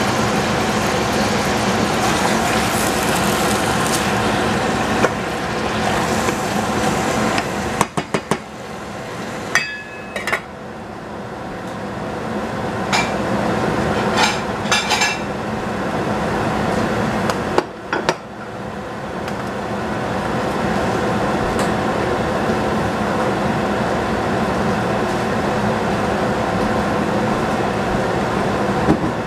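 Vegetables sizzling in a stainless steel saucepan over a steady hum. Between about 8 and 18 seconds in, a few metal clinks and knocks from the spatula, pan and lid as the pan is covered, one with a brief ring. The sizzling carries on under the lid.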